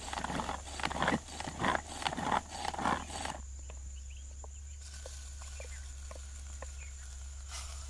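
Hand-pulled vegetable chopper being worked with quick, rattling pulls for about three seconds as it chops tomatoes. Then a few light ticks of a spoon scraping the chopped tomato out of the chopper's plastic bowl.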